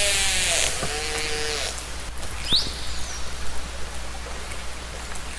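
Killer whale (orca) calls recorded underwater: a pitched call with stacked tones falling in pitch at the start, a shorter lower call about a second in, and a brief rising whistle a little before halfway, over a steady hiss of water noise.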